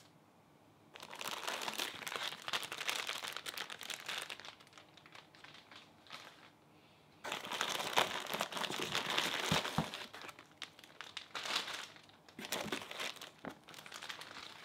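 Clear plastic bags crinkling as a hand rummages through them inside a cardboard parcel: two main spells of rustling, starting about a second in and again about seven seconds in, with shorter rustles near the end.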